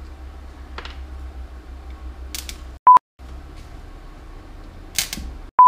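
Two short, loud, pure electronic beeps about two and a half seconds apart. All other sound cuts out around each one, as with a tone laid in during editing. Between them, quiet clicks and light clatter of parts being handled on a workbench.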